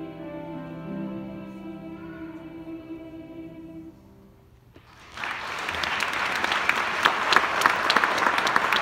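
A choir holds its final chord, which dies away about four seconds in. After a short pause, an audience breaks into loud applause.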